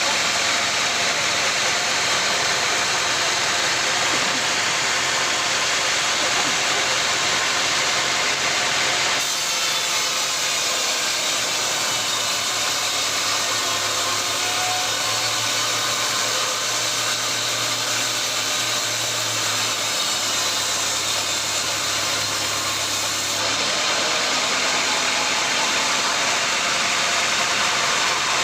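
Sawmill saw running and cutting through wood over steady machinery noise. The sound changes abruptly about nine seconds in and again some fifteen seconds later.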